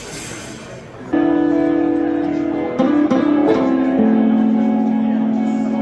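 Electric guitar played in a slow blues style, entering about a second in with long sustained notes and string bends, one note held through the second half.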